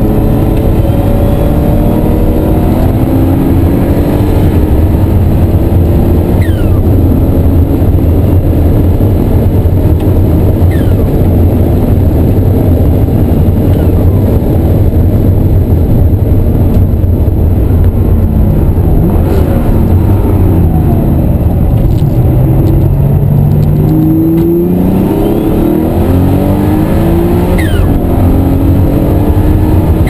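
Twin-turbo flat-six of a 1988 RUF CTR 'Yellow Bird' heard from inside the cabin, running hard on a race track. The pitch climbs through the gears and drops back at each upshift; about two-thirds through it falls away under braking, then climbs again.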